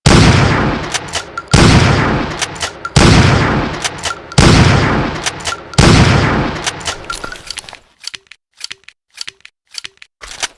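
Winchester Model 1897 pump-action shotgun firing five shots about a second and a half apart, each with a long echoing tail, with the clack of the pump action between shots. After the last shot comes a run of lighter clicks.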